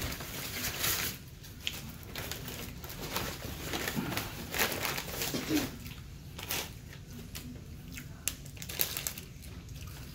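Plastic bag rustling and crinkling in short bouts as it is handled.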